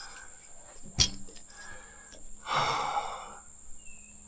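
A man's heavy, strained exhale in the middle, from the effort of wrestling a deer stand loose, with a short sharp knock about a second in. A steady high insect drone runs underneath.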